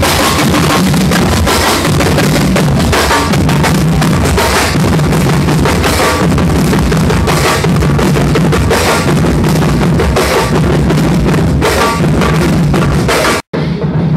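Drums of a school marching band (banda marcial) playing a marching beat, loud and close. Near the end the sound drops out for an instant and comes back duller.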